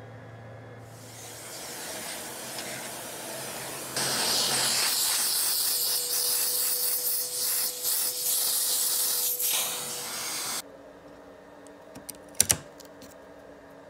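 Loud rushing hiss of air that builds over a few seconds, holds steady with a faint whistle in it, then cuts off abruptly. Near the end come a couple of sharp light clicks.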